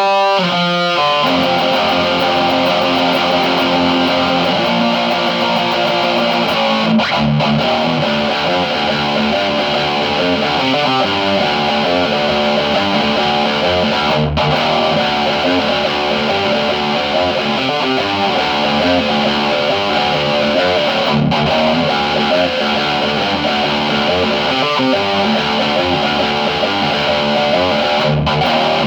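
Electric guitar played through a Friedman Sir-Compre compressor pedal, with a little distortion. A few short chords cut off sharply at the start, then it moves into continuous strummed chords and notes that ring on.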